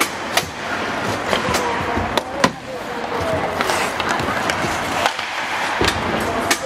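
Ice hockey in play: skate blades scraping and carving on the ice, with sharp clacks of sticks hitting the ice and puck scattered throughout, the loudest about two and a half seconds in.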